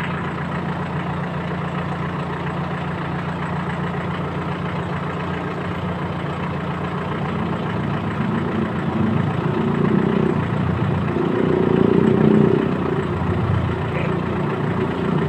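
Iseki NT548F tractor's diesel engine idling steadily, growing louder and rougher in the second half.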